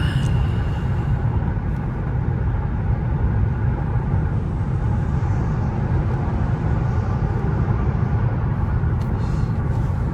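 Steady low road and tyre rumble heard inside the cabin of a 2024 Mercedes-AMG S580 on the move.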